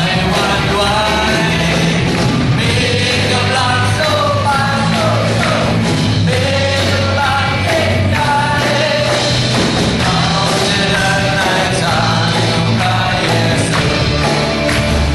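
Live church worship band playing an upbeat song with a drum kit and steady bass notes, while a melody is sung over it.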